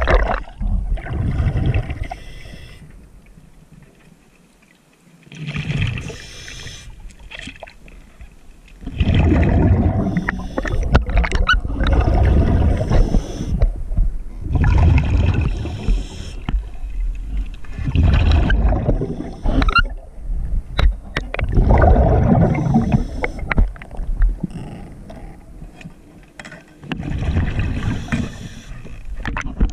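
Muffled underwater noise from a submerged camera: water rushing and gurgling past it in irregular surges lasting one to several seconds, with a quieter lull a few seconds in.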